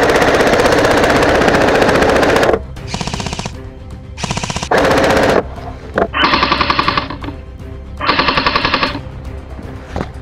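Airsoft electric rifle (AEG) firing on full auto: one long burst of about two and a half seconds, then four shorter bursts of about a second each.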